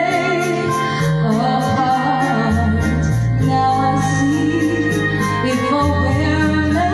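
A woman singing karaoke into a microphone over a videoke backing track, with held bass notes and a steady ticking beat underneath.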